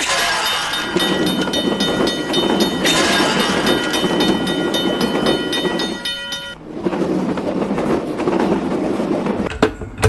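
Level-crossing warning bell ringing rapidly while a train runs past. The sound switches abruptly about three and six and a half seconds in.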